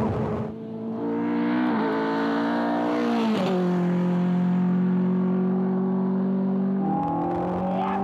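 BAC Mono's Cosworth four-cylinder engine under full throttle. Its note climbs and drops sharply twice as the sequential gearbox shifts up, then holds a steady pitch and starts to climb again near the end.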